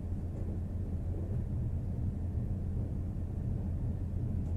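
Steady low drone of ship engine-room machinery running continuously, with no change in pitch or level.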